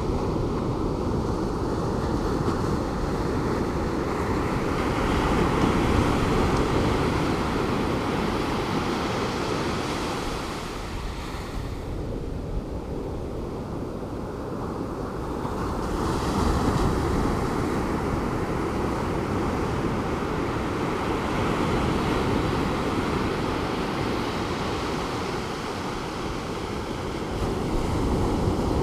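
Calm Pacific Ocean surf breaking on the beach in a continuous rushing wash that swells and ebbs slowly as sets of waves come in, with a lull about halfway through. Some wind on the microphone.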